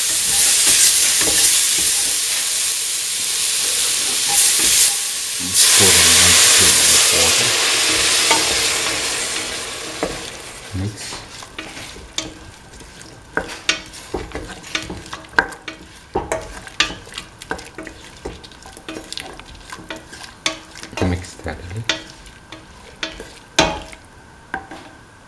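Chopped carrot, green bell pepper and onion sizzling in hot oil in a steel pan, with a loud hiss for the first ten seconds or so that then dies down. After that a spatula stirs them, and its clicks and scrapes against the metal pan are heard.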